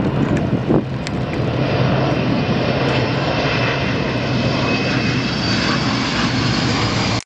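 Steady jet noise from the Shuttle Carrier Aircraft, a Boeing 747 with four turbofan engines carrying a Space Shuttle orbiter, as it flies low past, with a low steady hum under the noise. The sound cuts off abruptly near the end.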